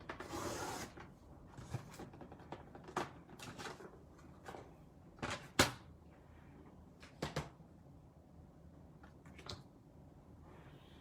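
Rustling, then a scatter of light knocks and clacks as card-making supplies are handled on a tabletop; the loudest clack comes about five and a half seconds in.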